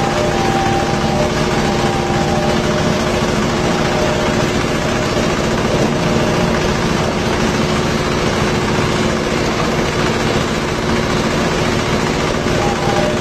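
Coconut husk-peeling machine running steadily: a loud, even mechanical drone with a constant hum.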